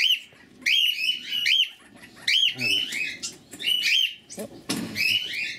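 Cockatiels calling noisily in an aviary flock: short chirps that rise and fall, in repeated bursts about a second apart.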